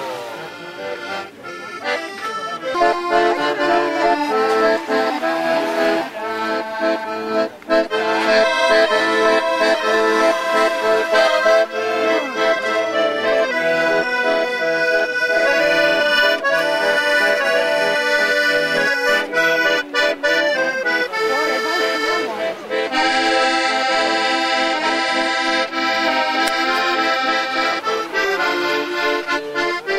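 Accordion playing a continuous tune, with held notes changing from one to the next.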